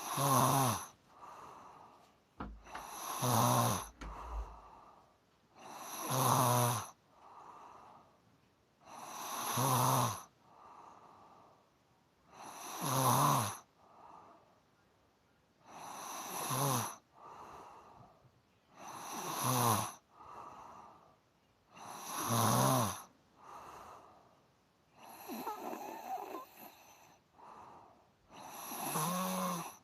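A person snoring steadily. A loud snore with a low, pitched rattle comes about every three seconds, and each is followed by a softer breath.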